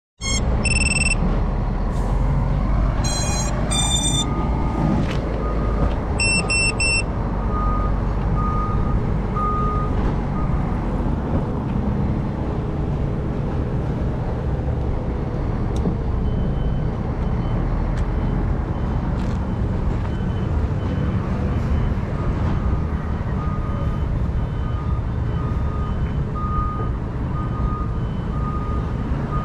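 Steady low wind rumble on the microphone, with a few short electronic beep tones in the first seven seconds and faint intermittent beeping after that.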